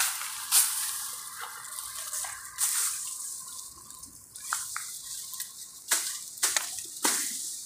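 Elephant grass leaves and leafy undergrowth rustling and swishing as they are pushed through and gathered by hand, with several sharp, sudden rustles.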